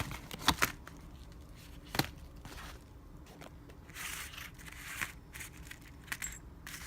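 Plastic packaging being handled: intermittent crinkling and rustling with a few sharp clicks, as a cable is worked out of its plastic sleeve.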